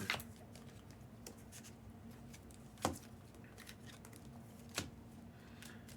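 Quiet handling of trading cards: faint flicks and slides as cards are leafed through, with two sharper clicks, about three and five seconds in.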